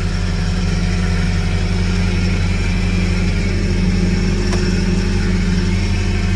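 John Deere 323E compact track loader's diesel engine running at a steady speed.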